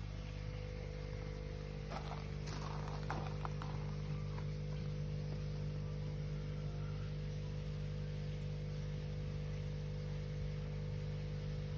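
A steady low machine hum, with a few faint clicks about two to three and a half seconds in.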